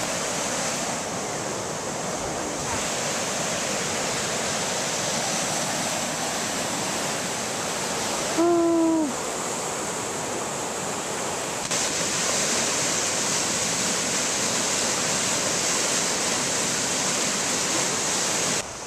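Steady rushing roar of a river in flood, fast white-water rapids running high after heavy rain. About eight and a half seconds in, a short pitched sound, falling slightly at its end, rises briefly above the water.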